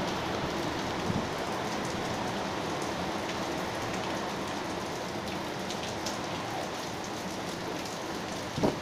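Heavy cyclone rain pouring steadily in gale-force wind, an even rushing hiss. A brief louder sound stands out near the end.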